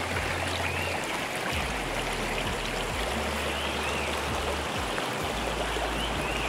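Small waterfall rushing steadily as water pours over rocks into a pool, with a few faint high chirps over it.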